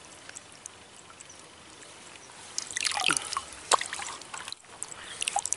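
Water dripping and trickling in short clusters of small splashes, starting about two and a half seconds in and coming again near the end.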